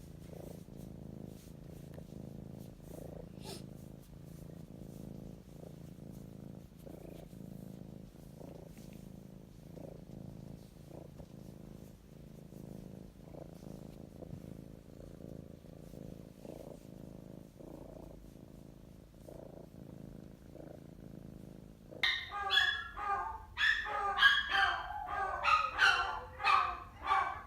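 Cat purring steadily in a low, even rhythm. About 22 seconds in, an animal suddenly breaks into loud, rapid, high-pitched yips and cries.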